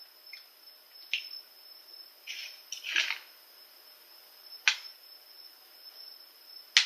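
Sporadic light clicks and taps from eating out of a plastic candy-kit tray, with a short scraping, crunchy stretch about three seconds in and a sharper click near the end.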